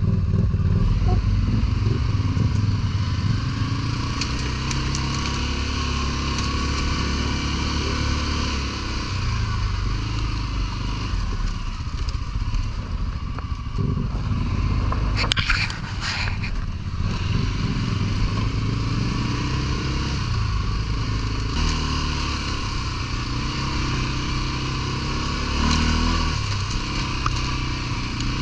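ATV engine running under load, its pitch rising and falling as the throttle is worked over rough ground. About halfway through, a brief rush of noise rises over the engine.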